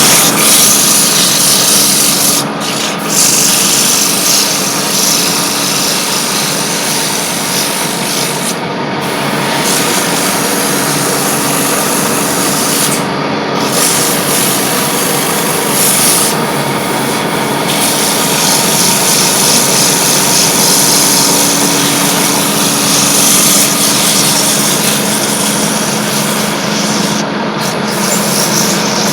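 Wood copy lathe turning a baluster: the motor runs steadily while the cutter shaves the spinning wood, giving a loud continuous rasping hiss that drops out briefly a few times.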